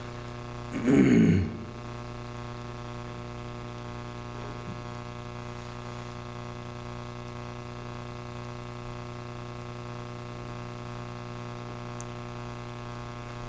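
Steady electrical mains hum from the church sound system during a pause in speech, with one short noisy burst from the speaker's microphone about a second in.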